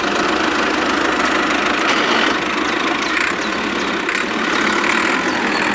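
Toy mini tractor running steadily as it tows a loaded trolley: an even, engine-like running noise with no change in speed.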